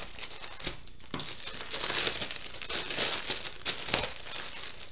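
Clear plastic packaging crinkling as it is handled and pulled off a small bag, with a short lull about a second in.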